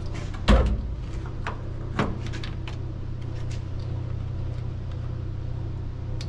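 B-pillar trim piece handled and pressed onto a car's pillar: a thump about half a second in, then light knocks and clicks, over a steady low hum.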